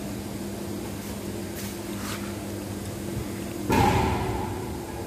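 Steady hum of running machinery with two low steady tones. About three and a half seconds in, a sudden loud metallic knock rings briefly and fades over about a second.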